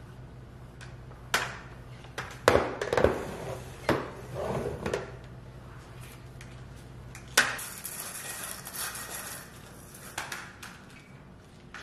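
A flat mop swishing and scraping across ceramic floor tiles, with several sharp clacks as the mop head and handle knock about, most of them in the first half and one more about seven and a half seconds in.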